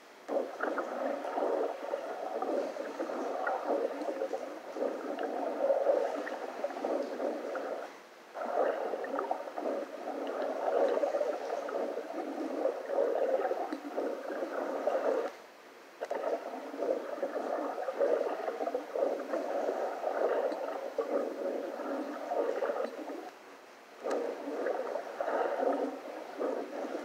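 Underwater camera audio of rushing water, played back through computer speakers and re-recorded, so it sounds thin with no bass. The noise drops out briefly three times.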